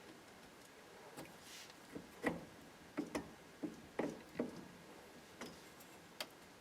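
A scattered series of sharp clicks and knocks, thickest between about two and four and a half seconds in, from parts and tools being handled while a 1955 Chevrolet steering column is taken apart.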